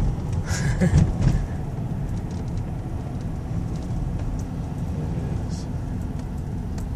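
Steady low rumble of a car's engine and tyres, heard from inside the cabin while driving slowly down a street.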